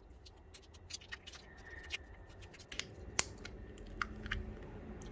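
Foil seal on a small plastic bottle of bubble liquid being picked at and torn open: faint, irregular crinkles and sharp clicks.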